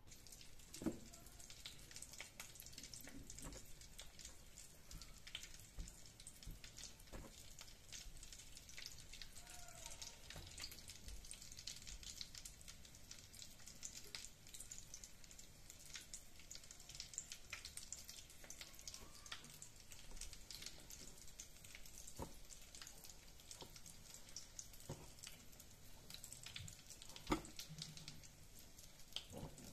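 Faint, steady fine crackling of breadcrumbs and wet egg coating as hands dip mashed-potato croquettes in beaten egg and press them into breadcrumbs, with a sharp tap about a second in and again near the end.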